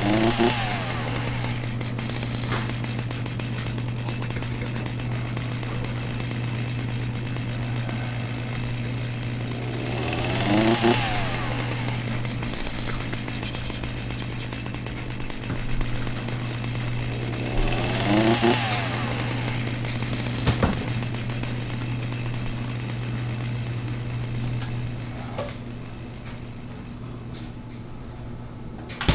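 Chainsaw engine revving up and dropping back three times, about eight seconds apart, over a steady low drone that stops near the end.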